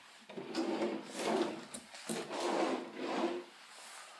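Kitchen drawers being pulled open and pushed shut one after another: about four sliding rubs in a row, each lasting around half a second.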